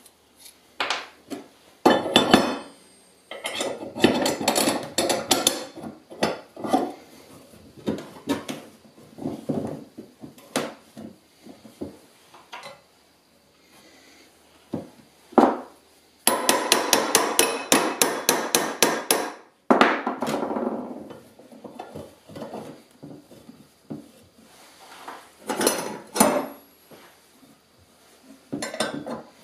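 Steel parts of a homemade nut cracker being fitted together by hand: bolts, nuts and square tubing clinking and knocking on a metal-topped workbench, with a fast run of clicking for about three seconds midway.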